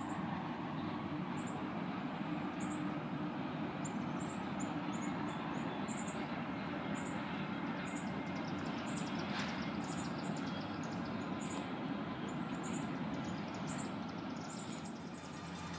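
Freight train rolling past, a steady rumble of cars on the rails. Short high chirps repeat about twice a second above it.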